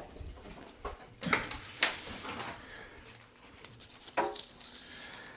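Packaging being handled and pulled off a new tumble dryer: knocks and rustling, with two sharp knocks between one and two seconds in and a brief pitched sound about four seconds in.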